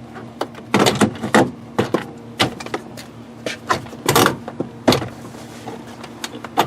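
Plastic interior door trim panel of a Chevy pickup being fitted back onto the door: a string of irregular plastic clicks, knocks and rubbing as it is seated into the belt molding and pressed into place, busiest about a second in.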